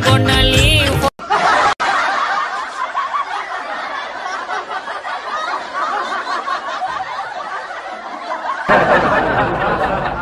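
Background music cuts off about a second in. After that, several people giggle and laugh together, and the laughter gets louder near the end.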